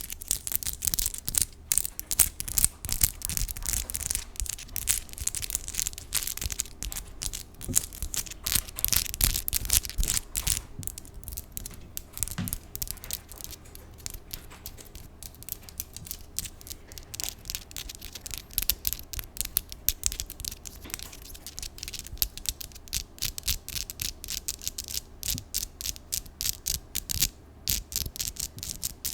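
Long artificial 3D nails tapping and scratching in rapid, irregular clicks close to the microphone.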